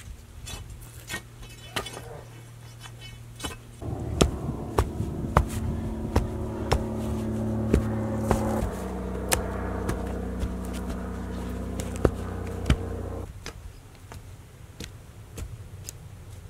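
A shovel and a steel digging bar chop into soil, with sharp strikes about once a second. An engine hums steadily under them from about four seconds in, drops in pitch midway and stops about thirteen seconds in.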